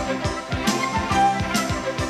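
Instrumental background music with a steady, quick drum beat.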